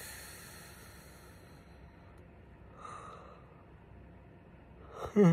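A man yawning: soft breathy exhales, then near the end a short, loud vocal sound that falls in pitch.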